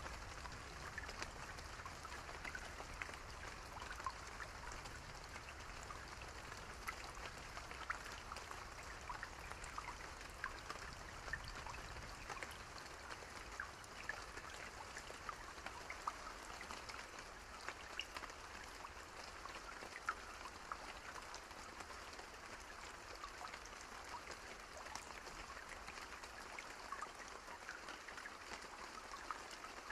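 Steady rain falling, an even hiss with many separate drops pattering on a surface; a faint low rumble underneath fades out about halfway through.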